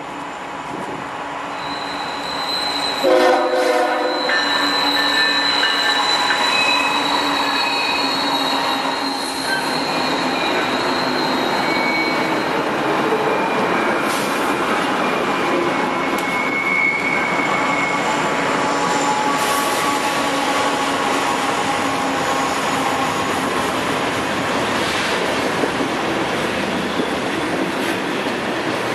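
Multi-locomotive diesel freight train, led by a GE ES44AH, passing close under power. There is a short horn blast about three seconds in, and steel wheels squeal on the curve as the locomotives and then the freight cars roll by.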